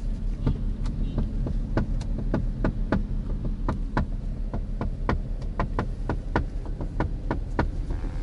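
Taxi driver drumming his hands on the window glass: a long run of sharp taps, about two to three a second, over the steady hum of the moving car's cabin.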